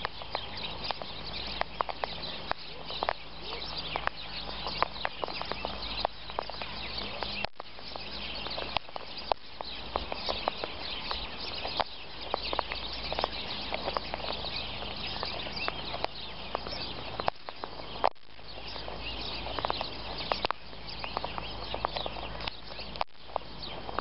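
Sulphur-crested cockatoos feeding on birdseed right at the microphone: an irregular run of sharp clicks and taps as their beaks peck and crack seed on the ground and their feet shuffle through it. The sound cuts out briefly about a third of the way in and twice more later.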